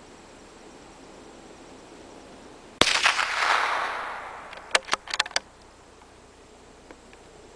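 A single shot from a CZ 452 American bolt-action .22 LR rifle, with a trailing echo that dies away over about a second and a half. About two seconds later comes a quick run of metallic clicks as the bolt is worked to eject the spent case and chamber the next round.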